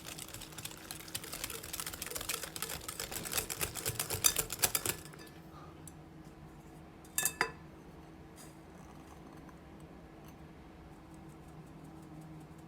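Rapid light clicking of a kitchen utensil working in a mixing bowl, growing louder and then stopping about five seconds in. A single sharp clatter follows a couple of seconds later, then only faint occasional ticks.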